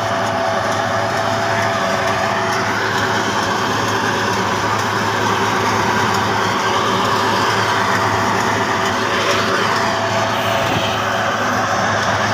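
John Deere 5075E tractor's diesel engine running steadily under load, with a steady whine above the engine note.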